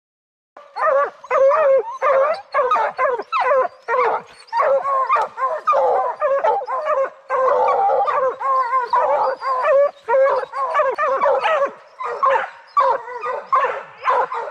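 A pack of young bear hounds barking treed at the base of a tree where a bear is treed. The barks come rapid and overlapping, several voices at once, starting about half a second in.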